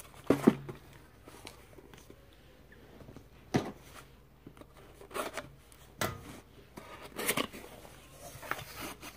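Cardboard mailer box being handled and opened by hand: a handful of short scrapes, taps and rustles of fingers and flaps on the cardboard.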